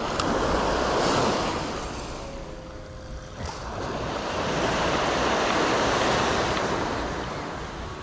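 Small waves washing up on a sandy beach, swelling twice: once about a second in, and again more broadly from about four to seven seconds in.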